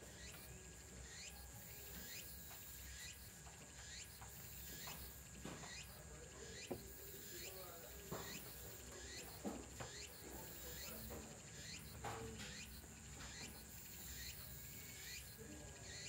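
Faint insects calling outdoors: a short sweeping chirp repeating about one and a half times a second over a steady high hiss, with a few soft knocks now and then.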